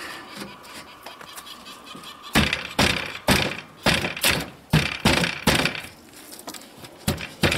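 Wooden thumps and knocks as a tight OSB panel is forced into an old wooden rabbit hutch frame, with faint scraping at first. A couple of seconds in comes a quick run of about eight knocks over three seconds, then two more near the end.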